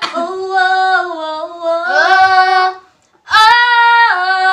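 A woman singing unaccompanied: long held notes in two phrases, with a brief break about three seconds in.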